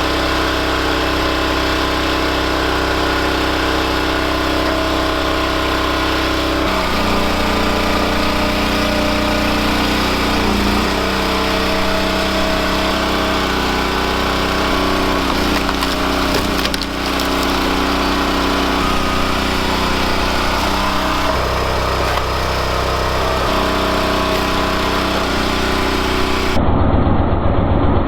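Engine of a hydraulic log splitter running steadily, its pitch shifting up and down a few times as the load changes. Near the end the sound changes abruptly to a louder, rougher running.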